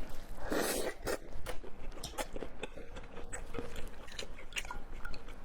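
Close-up eating sounds: a person biting and chewing food, with many short wet clicks and crunches and one louder, longer burst about half a second in.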